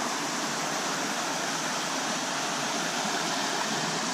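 Creek water running over rocks, a steady rushing hiss with no breaks.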